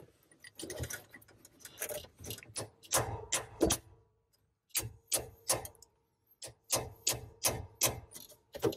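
Hammer striking a chisel to drive a shifter alignment pin out of an M5OD transmission shifter body: a quick series of sharp taps, about three a second, with a short pause a little before the middle.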